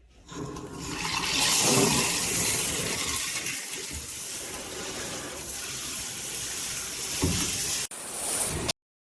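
Water rushing from a pet shower hose attachment run off a bathtub spout diverter. It swells over the first second or two, runs steadily, then cuts off suddenly near the end.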